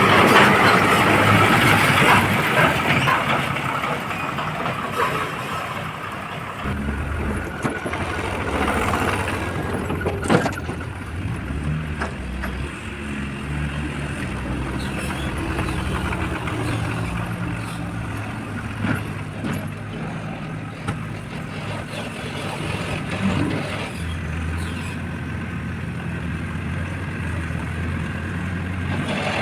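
Diesel engine of a JCB 4DX backhoe loader running under working load, its speed shifting up and down several times. There is a single sharp knock about ten seconds in.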